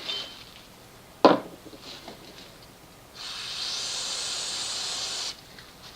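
Aerosol spray cleaner hissing in one steady blast of about two seconds, starting about three seconds in, cleaning the oil filter housing shaft.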